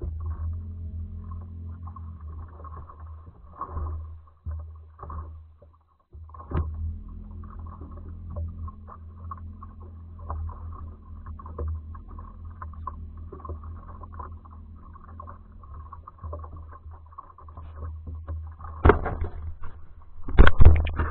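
Steady low hum and rumble of a fishing boat sitting on the water, with a few loud knocks near the end as the angler steps and moves right beside the boat-mounted camera.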